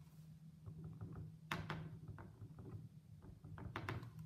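Faint handling sounds of stamping tools: a sharp click about a second and a half in and a few light taps near the end, over a low steady hum.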